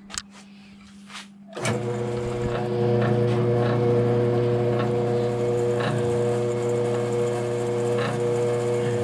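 A few light clicks, then about a second and a half in a 1957 Diamond M-22 horizontal milling machine is switched on and its belt-driven spindle runs up to a steady hum that holds to the end.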